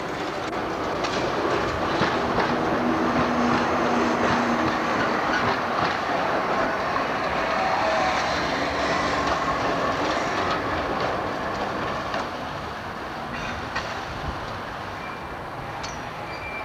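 Articulated electric tram passing close by, its wheels clattering over rail joints and the points of a tram junction. It grows louder over the first few seconds and fades as it moves away in the second half.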